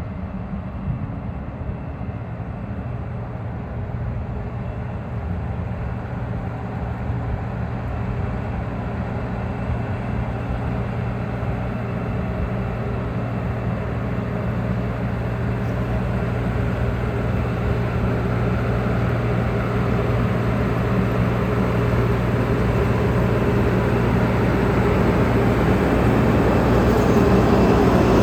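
Large farm machine's engine running steadily with a low hum, growing gradually louder.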